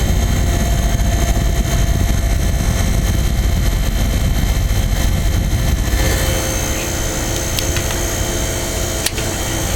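A vintage Norge-built Montgomery Ward 25-pint dehumidifier running with its fan on low and its compressor on, giving a steady hum. Its sound gets brighter about six seconds in, and a single sharp click comes near the end.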